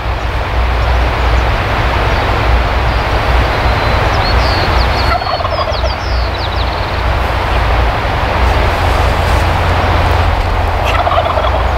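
A wild turkey gobbler gobbling, a rapid rattling call heard twice, about five seconds in and near the end, over a loud steady rush of noise. A small bird chirps in between.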